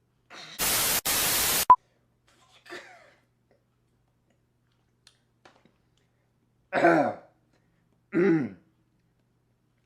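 A person coughing and clearing their throat from the burn of very hot sauce. A harsh, distorted burst comes about half a second in, then two short, throaty coughs near the end.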